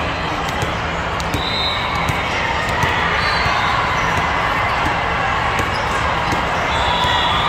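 Din of a large hall full of volleyball courts: constant crowd chatter with frequent sharp smacks and bounces of balls on the surrounding courts. A few short high squeaks come through, about a second and a half in, around three seconds and near the end.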